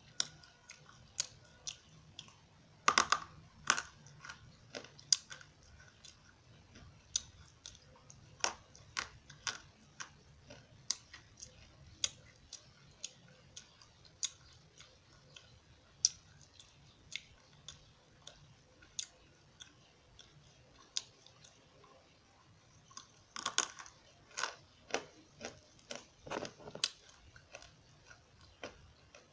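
Crunchy edible eko clay being bitten and chewed close up: sharp crunches and clicks about once or twice a second, with louder clusters of bites about three seconds in and again toward the end.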